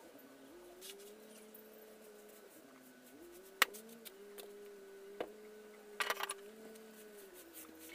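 Broom and plastic dustpan knocking against a mud floor during sweeping: one sharp knock a little past the middle and a short clatter of several hits near the end. A faint steady hum that dips in pitch now and then runs underneath.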